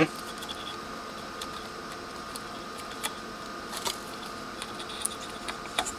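A few faint clicks and taps as a flat ribbon cable is worked into its connector on a circuit board, over a steady faint background hum.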